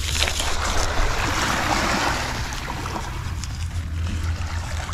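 Surf washing onto a pebbly beach, a wave swelling about a second in and dying away, over a steady low wind rumble on the microphone.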